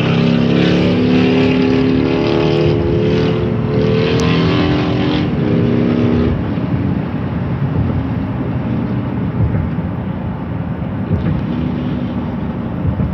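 Motorcycle engine running close alongside, its pitch shifting slowly, then cutting out of hearing about six seconds in as the bike pulls ahead. After that only the steady rush of road and wind noise from the moving car is left.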